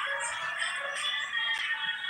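Background music with steady, sustained tones.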